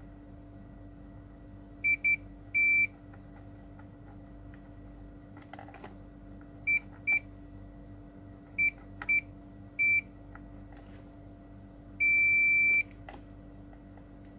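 Electronic beeper giving short high beeps of one steady pitch, singly and in pairs, then one longer beep of most of a second near the end.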